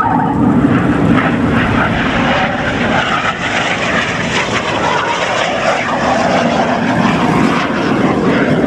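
Aermacchi MB-339 jet trainer in flight, its Rolls-Royce Viper turbojet giving a steady rushing jet noise.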